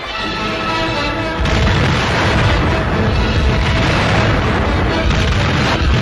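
Orchestral newsreel music, then about a second and a half in a sudden loud explosion from a demolition charge, whose heavy rumble carries on over the music.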